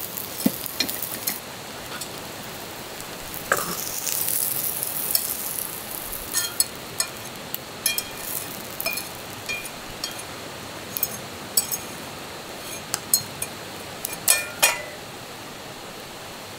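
Metal cooking utensils clinking and tapping against metal cookware, many short ringing taps at irregular intervals, with food sizzling briefly in the pan about four seconds in.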